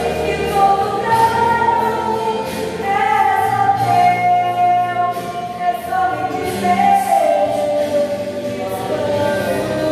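A choir singing a gospel hymn, with long held notes.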